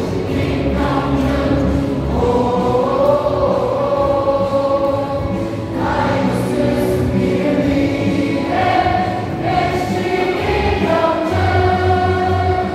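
A baseball crowd singing a cheer song together in long held notes, over the stadium's amplified backing music.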